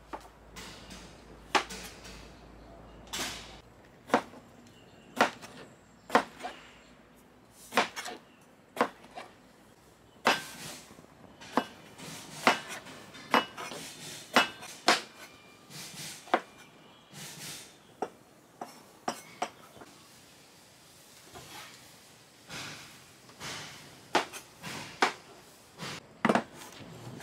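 Broad-bladed kitchen knife chopping eggplant on a plastic cutting board: sharp, separate knocks of the blade striking the board, at an uneven pace of roughly one a second.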